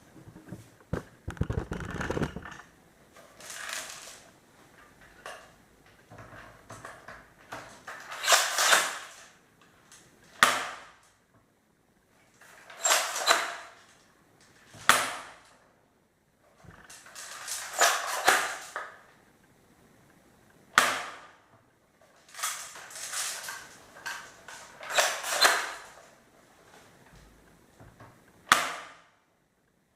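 Azzuri AZ728V spring-powered airsoft shotgun being pumped and fired repeatedly: each cocking stroke is followed a second or two later by a sharp shot, four shots in all.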